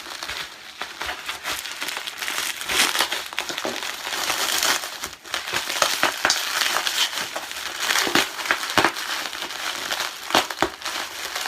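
Plastic packaging crinkling and rustling as it is handled and pulled away, with irregular crackles and clicks.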